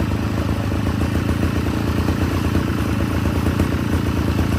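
Mitsubishi TL43 brush cutter's 43 cc two-stroke single-cylinder engine running steadily at a low, even speed, near idle.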